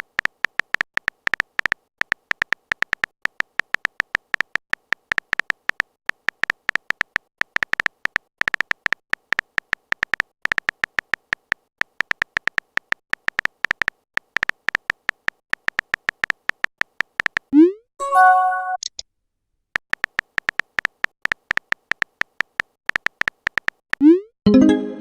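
Rapid, irregular typing clicks of a phone-keyboard sound effect run for most of the stretch. About two-thirds through they stop for a short rising swoop and a brief chime-like message tone, and a second rising swoop comes near the end.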